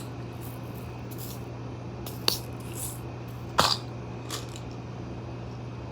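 A few light clicks and taps of small objects being handled on a table, the loudest about three and a half seconds in, over a steady low hum.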